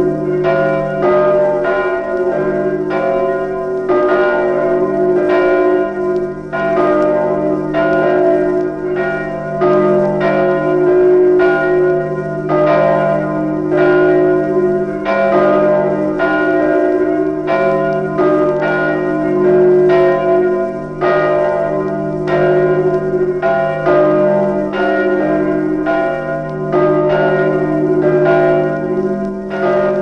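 Nidaros Cathedral's church bells ringing together in a continuous peal, strikes overlapping about two to three a second over a steady low hum that lingers from the bells.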